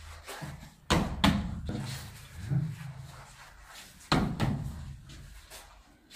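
Heavy thuds of a person being driven into padded wall mats during pushing hands: a quick double thud about a second in and another loud one about four seconds in, with scuffing footwork between.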